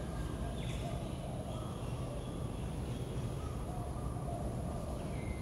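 Steady low outdoor rumble with faint, short bird calls repeating in the distance.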